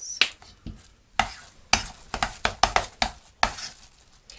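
Metal spoon stirring and scraping a thick, sticky rice-cake paste in a stainless steel bowl, with repeated scrapes and clinks against the metal in quick, uneven strokes.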